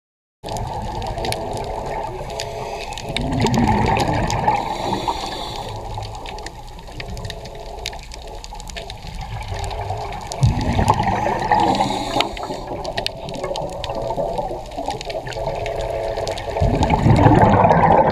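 Underwater water sound picked up through a diving camera on a coral reef: a steady gurgling wash with scattered sharp clicks, swelling into louder bubbling around four seconds in, again near eleven seconds, and near the end.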